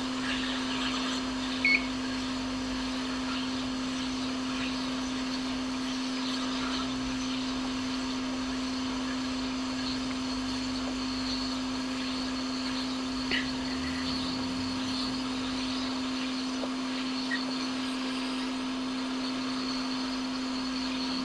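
Steady whirring of a hot air rework station's blower, heating a blown capacitor off a MacBook Air logic board to desolder it, with a couple of faint clicks.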